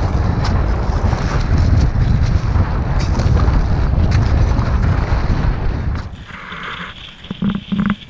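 Strong wind buffeting a helmet camera's microphone on a snowy mountain slope: a heavy, low rumble of wind noise. About six seconds in it drops away sharply to a much quieter, gusty level.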